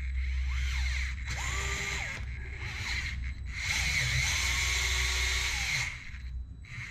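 Small electric screwdriver driving a screw into an RC crawler's axle link mount. It runs in three bursts, a short one in the middle and the last the longest, its motor whine rising as each starts and falling as it stops.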